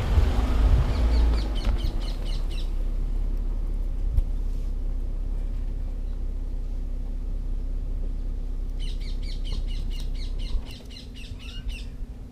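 A bird chirping in two quick runs of repeated calls, the first about a second in and the second near the end. Under it runs a steady low rumble with a hum, which drops away near the end.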